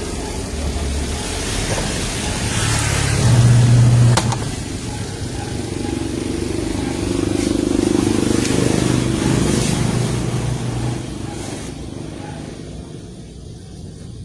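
Twin-tub washing machine with a newly fitted gearbox running on test, a steady motor-and-gearbox hum that shifts in pitch a few times and grows quieter over the last few seconds.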